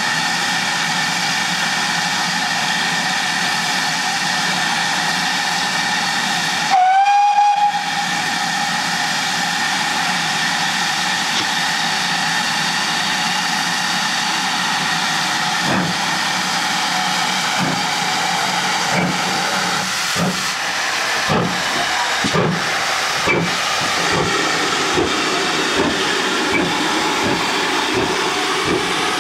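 Steam locomotive 9351, a GWR-type 2-6-0 tender engine, standing with steam hissing steadily. It gives one short whistle about seven seconds in, then moves off: exhaust beats start a little past halfway and come faster as it gathers speed, with steam hissing from the open cylinder drain cocks.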